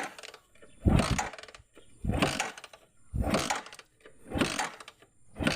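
Euro 150 motorcycle engine being cranked without the choke in short bursts about once a second, never catching. The engine won't run unless choked, which the mechanic traces to a dirty carburetor pump jet.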